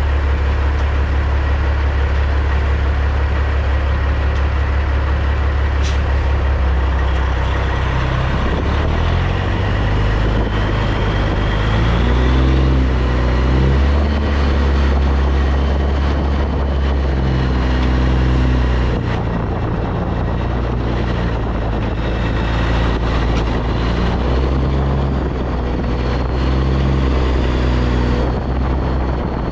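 Caterpillar C15 diesel engine of a 2006 Peterbilt 379 running at low revs while the rig creeps along, its pitch stepping up and down several times as the throttle is eased on and off. A faint whine rides above it, and there is a single sharp click about six seconds in.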